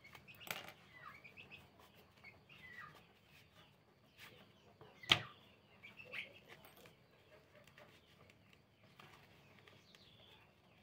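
Faint rustling and ticking of satin ribbon and thread being handled and gathered by hand, with a single sharp click about five seconds in.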